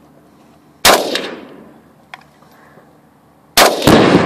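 A single shot from a PAP M70 rifle (7.62×39 mm AK-pattern) about a second in, echoing away. Near the end, a second shot sets off an exploding target: a much louder blast that keeps going in a long rolling rumble.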